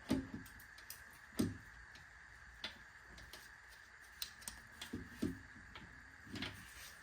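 Scattered, irregular metallic clicks and knocks of hand work on a 5.7 Hemi engine block, as the camshaft is worked at to slide it out, with a faint steady high whine underneath.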